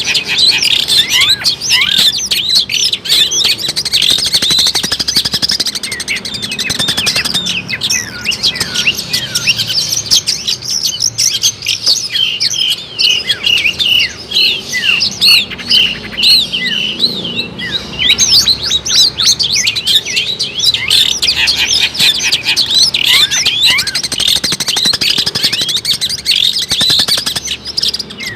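Long-tailed shrike (cendet) singing in full song: a dense, continuous stream of quick high chirps and sweeping notes. Near the middle it breaks into a run of short repeated notes.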